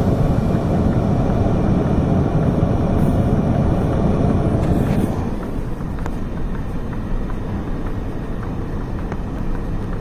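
Subaru driving on a snowy road, heard from inside the cabin: a steady rumble of road and engine noise that eases about halfway through as the car slows.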